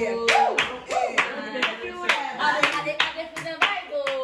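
A group clapping hands in a quick, steady rhythm, about four claps a second, with voices singing over it.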